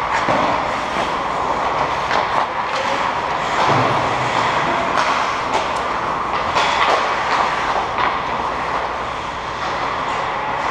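Ice hockey skates scraping and carving on the ice, with sharp clacks of sticks and puck striking now and then throughout.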